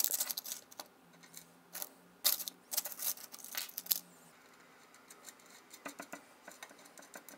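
A small steel bolt clicking and rattling against the corner of an MK3 heated bed as it is fitted by hand, with its washer and nut. Quick clusters of light metallic clicks, busiest in the first four seconds and fainter near the end.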